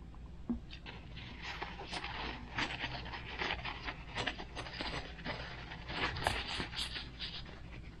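Paper towel rustling and crinkling in the hands as a metal stabilizer wire is rubbed clean inside it, in quick irregular scrunches, after a single small click about half a second in.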